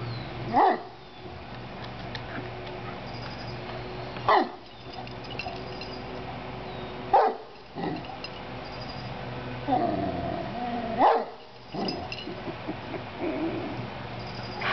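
Irish Wolfhound 'talking': short, pitched, bending vocal calls every few seconds, with one longer drawn-out call about ten seconds in.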